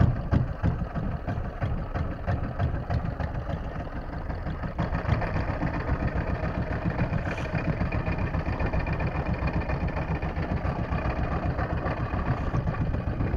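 A fishing boat's engine idling steadily.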